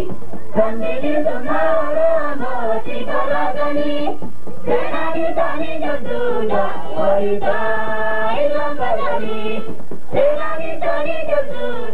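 A mixed group of young men and women singing a song together in chorus, in long sung phrases with short pauses between them, about four seconds in and again near ten seconds.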